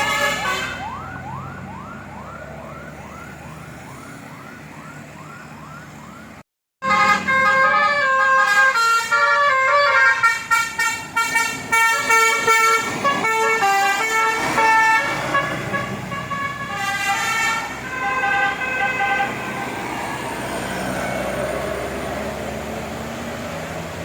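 Bus Basuri telolet multi-tone horn: first a fast run of rising siren-like whoops, about three a second, then after a brief break a loud tune of changing horn notes. The tune fades near the end into quieter engine and road noise.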